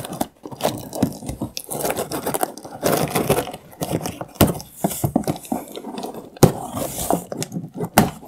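Cardboard shipping box being opened by hand: irregular scraping, tearing and rustling of cardboard, with sharp clicks.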